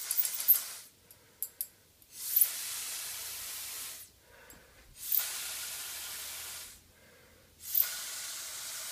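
Mouth-blown atomizer spraying ink in four separate hissing blasts of about two seconds each, one breath per blast, with a few light ticks between the first two.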